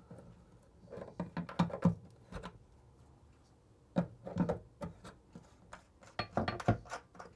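Scattered light clicks and metallic clinks of tools and small faucet parts being handled as a bathroom faucet handle is taken apart, in short clusters about a second in, around four seconds and past six seconds.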